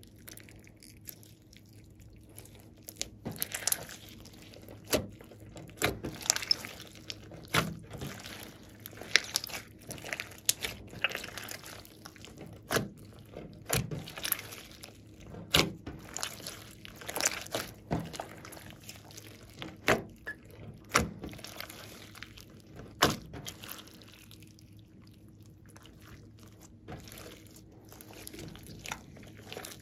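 A large glossy slime with small beads mixed in, kneaded and stretched by hand: wet squishing with many sharp pops and clicks. The pops are busiest through the middle and thin out near the start and end.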